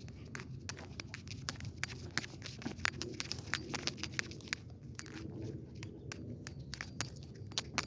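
Footsteps crunching along a trail: a scatter of sharp irregular clicks over a steady low rumble.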